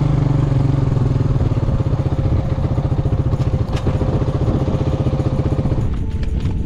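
Quad bike engine running steadily with a fast, even pulse; it cuts off suddenly about six seconds in.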